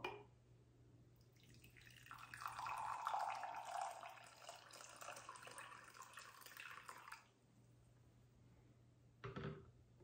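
Freshly boiled water poured from a stainless-steel electric kettle into a mug: a faint splashing stream lasting about six seconds, its pitch creeping up as the mug fills. Near the end there is a short knock as the kettle is set down.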